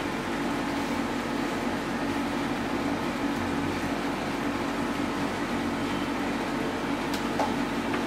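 Steady background hum and hiss with a constant low drone, like a fan or air conditioner running in the room; a faint tick near the end.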